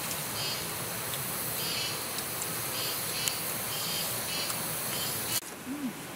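Forest insects chirping in short repeated bursts, about one a second, over a steady background hiss; the hiss drops off suddenly about five seconds in.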